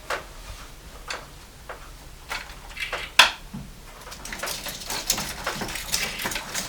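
Scattered clicks and light knocks of hands working an engine wiring harness and its connectors loose, the loudest knock about three seconds in and quicker light ticking near the end.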